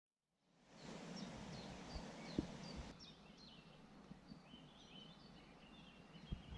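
Songbirds chirping and trilling over a faint outdoor hiss, fading in from silence. A single sharp thump comes about two and a half seconds in, and the background hiss drops abruptly a moment later.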